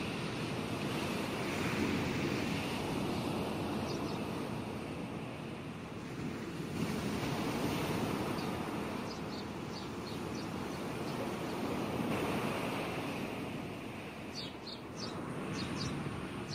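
Sea waves surging and washing back in slow swells about every five seconds. Short high bird chirps join about nine seconds in, with a busier cluster near the end.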